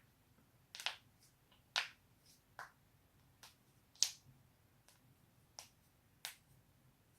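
A person's joints cracking: a run of about nine sharp pops at uneven spacing, mostly under a second apart, the loudest about four seconds in.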